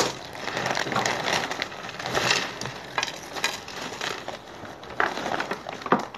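Crisp nacho chips rustling and crackling as they are handled and piled onto a plate, with a few sharper cracks near the start and the end.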